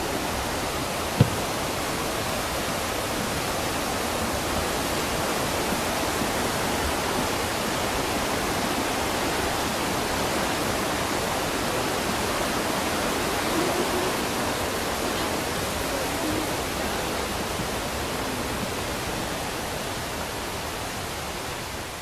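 Mountain stream rushing, a steady even hiss of flowing water, with a single sharp click about a second in.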